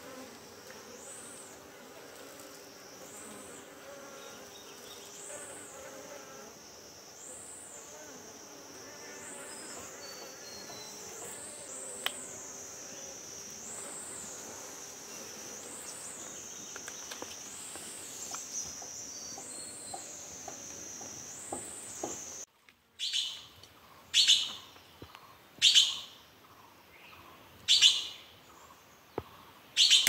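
A high insect buzz that swells and fades about once a second, with a faint low hum beneath it. After a brief break, about five loud bird calls ring out, roughly a second and a half apart.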